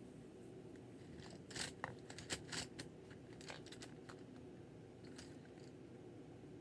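Colored pencils clicking and clattering against one another as they are rummaged through: a scatter of short, irregular clicks, mostly between about one and three and a half seconds in, over a low steady hum.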